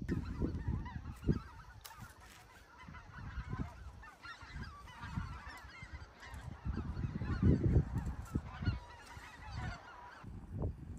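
A large flock of wild geese honking as it flies overhead, many calls overlapping, thinning out near the end. Gusts of wind buffet the microphone throughout with a low rumble, loudest a little past the middle.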